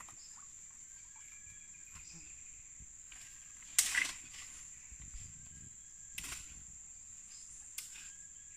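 Steady high-pitched drone of forest insects, with a few sharp cracks and crunches of someone climbing through dry branches on a muddy bank: the loudest about four seconds in, more around six seconds and near the end.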